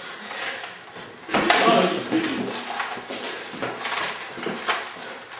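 Scattered knocks and clatters in a small room, with a brief burst of a person's voice about a second and a half in.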